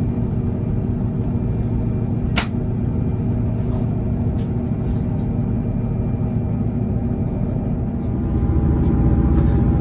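A train's engine running with a steady low rumble, growing louder about eight seconds in. A single sharp click sounds about two and a half seconds in.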